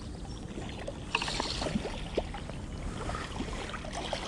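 A small hooked fish splashing at the water's surface as it is reeled in, over light water lapping, with a short splash about a second in.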